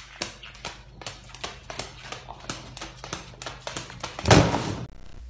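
Light taps and clicks, about four a second, as a blue-and-gold macaw worries a feather wand toy with its beak. About four seconds in comes a loud, harsh burst lasting about half a second.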